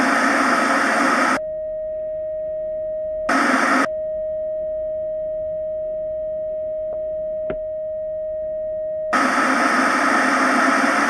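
Television static hiss cutting in three times: at the start, briefly about three seconds in, and again near the end. Between the bursts a steady single-pitched test-pattern beep tone plays, with two faint ticks during it.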